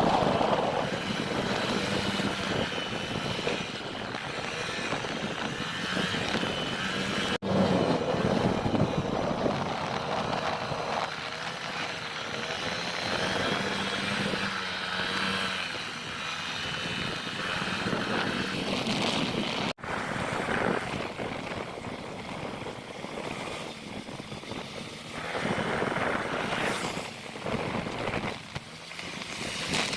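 Honda Click 125i scooter's small single-cylinder engine running under way, mixed with wind rush on the helmet microphone, its pitch wavering as the speed changes. The sound cuts out for an instant twice.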